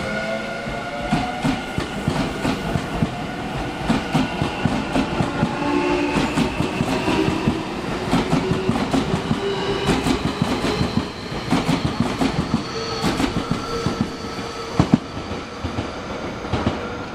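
Nankai electric commuter train pulling out along the platform. Its traction motors whine, rising in pitch as it picks up speed, and the wheels clack repeatedly over the rail joints.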